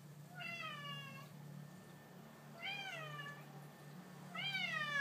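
Domestic cat meowing three times, each meow rising then falling in pitch, about a second apart, the last one the loudest. The meows are the cat begging to be taken outside for a walk.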